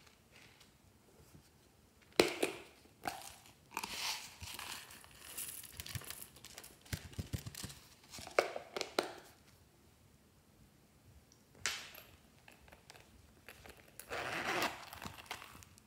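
A wafer box's cardboard and wrapper packaging being handled and torn open, crinkling and tearing in uneven bursts with a few sharp snaps.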